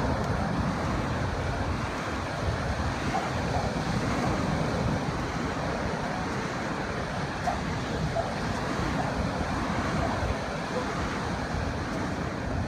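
Ocean surf breaking and washing up the sand at the shoreline, with wind buffeting the microphone.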